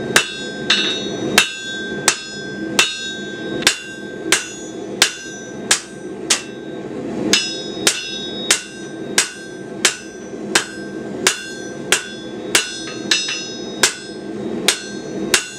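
Hand hammer striking a hot steel bar on an anvil at an even pace, about three blows every two seconds, each blow leaving a ringing note. The blows are drawing a second shoulder into the bar for a forged leaf keyring.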